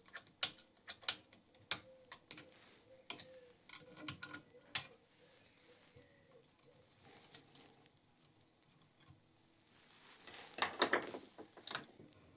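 Light metallic clicks and scrapes of a small screwdriver prising a circlip off a motorcycle rear shock absorber's spring seat. Scattered single clicks come first, then a quiet spell, then a quick run of scraping clicks about ten seconds in.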